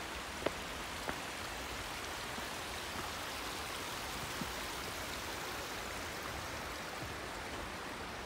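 Steady rushing of fast river water and falls, an even roar without pauses, with a couple of sharp knocks in the first second and a half.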